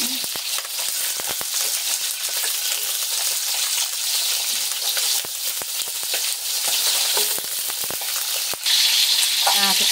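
Green bell pepper pieces stuffed with minced fish paste sizzling in hot oil as they are added to the pan one by one, with scattered spattering pops. The sizzle jumps louder near the end.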